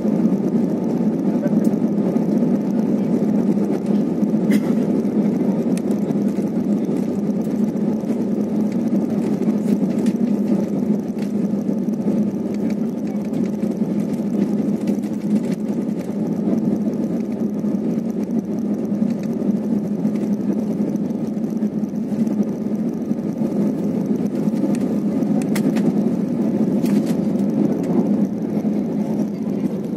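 Airbus A320-family airliner's cabin during the takeoff roll: the jet engines at takeoff power and the runway rumble make a steady low noise, with a few faint clicks or rattles.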